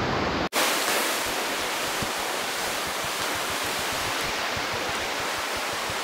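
Steady rushing of whitewater rapids, broken by a brief dropout about half a second in.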